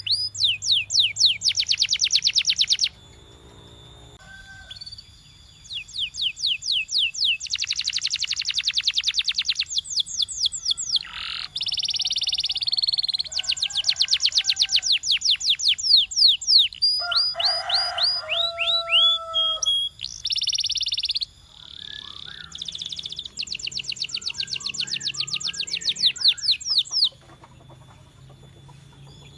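Canary singing in phrases of a few seconds: fast trills of repeated falling whistled notes alternate with dense buzzing rolls, separated by short pauses.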